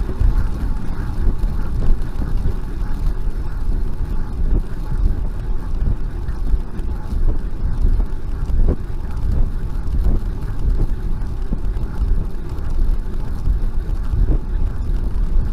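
Steady low wind rumble on the microphone of a bicycle-mounted camera, mixed with the hiss of the bicycle's tyres rolling on asphalt at riding speed, about 25 km/h.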